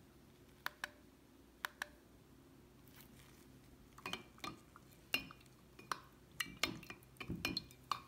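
Plastic TDS meter clinking and tapping against a glass mason jar as it is dipped and stirred in the water. Two light clicks come in the first two seconds, then a run of small clinks through the second half.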